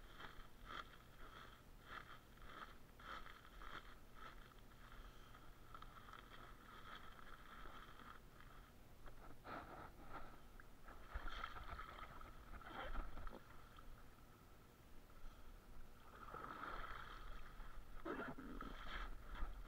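Water sloshing and small splashes around an inner-tube float, mixed with the rustle of a woven plastic bait sack being handled. Near the end the splashes get louder as the booted feet stir the water.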